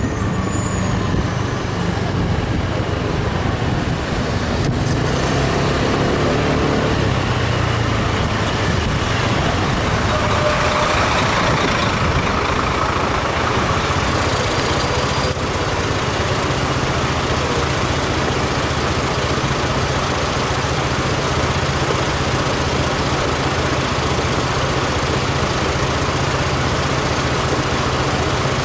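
Motorbike engine slowing from riding speed with wind and road noise, its note dropping over the first several seconds, then idling steadily while stopped in traffic.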